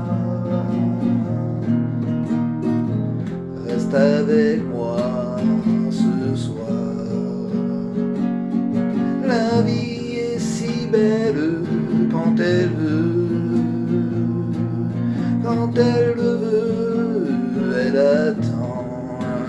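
Acoustic guitar strummed as a steady song accompaniment, with a man's voice singing over it at times.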